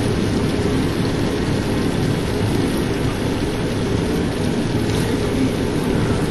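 Chicken liver in a spicy creamy sauce simmering in a pan on the stove, a steady bubbling noise with no breaks.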